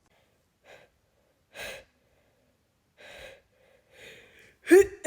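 A woman's short, gasping breaths during a pollen-triggered sneezing fit, building up to a loud sneeze near the end.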